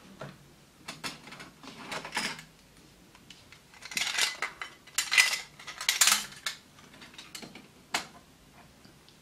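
Handling noise from a smartphone being picked up and turned over on a desk: scattered clicks, taps and scrapes in short bursts, the loudest a few seconds in, with a single sharp click near the end.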